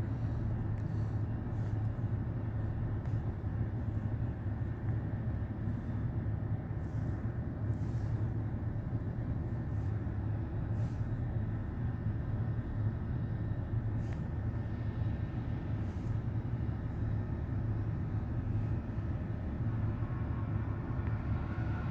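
Freight train of grain cars rolling past with a steady low rumble.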